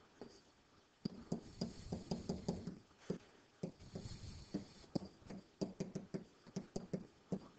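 Stylus tapping and scratching on a digital writing surface as words are handwritten: a run of irregular short clicks and scrapes that starts about a second in.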